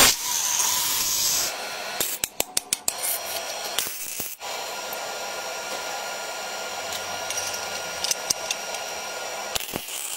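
A small electric motor or power tool running steadily with a whine, with a run of sharp clicks about two to three seconds in.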